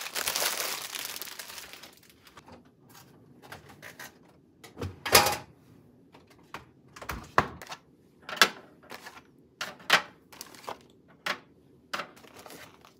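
Groceries being unpacked by hand: a rustle of packaging at first, then a string of sharp clicks and knocks about once a second as items are set down, including eggs placed one by one into a clear egg tray. The loudest knock comes about five seconds in.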